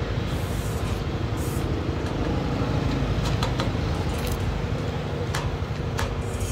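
Steady low machine hum, with a few short sharp cracks a little past halfway and again near the end, as a stick welder's electrode is struck on a galvanised steel box-tube truss joint to tack it.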